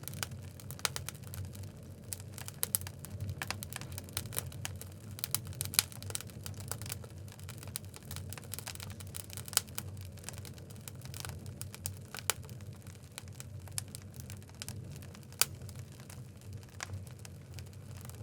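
Oak logs burning in a wood fireplace: irregular crackles and sharp pops over a steady low rumble of flames, with a few louder pops.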